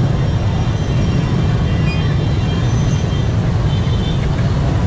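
Steady rumble of many motorbike engines in slow, packed street traffic, with faint high-pitched tones coming and going above it.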